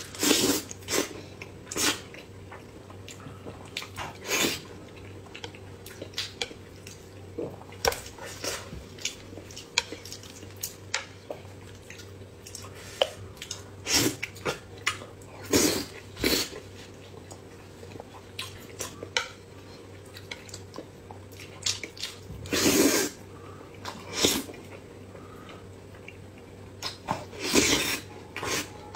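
Close-miked eating: a person biting and chewing soft sauce-glazed fish, with irregular wet mouth clicks and smacks over a faint steady hum, and two longer, noisier mouth sounds in the last third.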